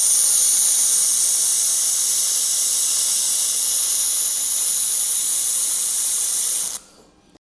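Laser welding: a loud, steady, high hiss that starts abruptly and cuts off suddenly about a second before the end.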